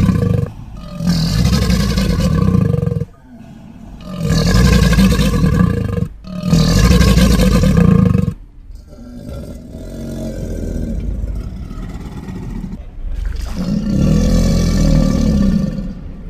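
Crocodilian calling: a series of deep, rumbling calls about two seconds each, separated by short breaks. A softer stretch comes in the middle, and the calls grow loud again near the end.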